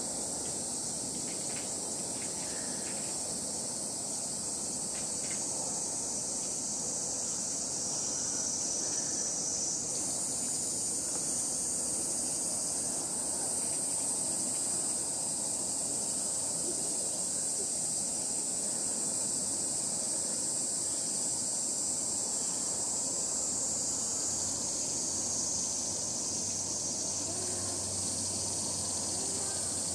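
A steady, high-pitched chorus of insects that gets a little louder about a third of the way through.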